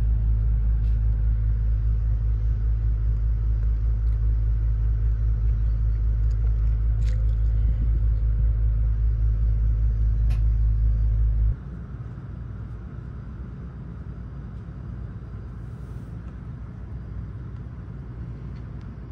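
Steady low rumble inside a Shinkansen passenger car, with a few faint clicks. About two-thirds of the way through, the rumble drops off abruptly, leaving a quieter steady cabin hum.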